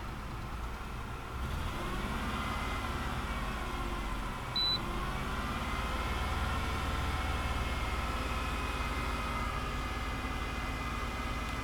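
1998 Ford Taurus engine raised to about 2,000 rpm, stepping up in level about a second in and then running steadily. Cylinder 1 is misfiring: at this speed it runs smoother, but the owner is sure the cylinder is still cutting out from the lack of power. A short high beep about four and a half seconds in.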